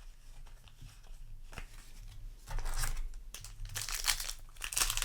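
Foil booster pack wrapper crinkling and tearing as a trading-card pack is handled and opened. It is quiet at first and grows louder and busier from about halfway in.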